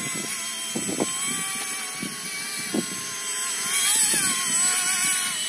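Blade mSR X ultra-micro RC helicopter's electric motor and rotor whining, its pitch wavering up and down as it is flown, louder from about four seconds in.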